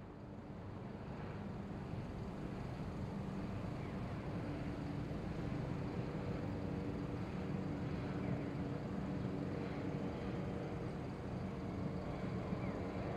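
City ambience: a steady hum of distant traffic with a faint droning undertone, swelling up over the first couple of seconds and then holding even.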